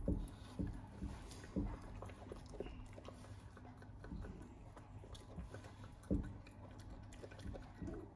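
Raccoon eating from a stainless steel pot: irregular wet chewing and small clicks from inside the pot, with a few louder knocks, the loudest about six seconds in.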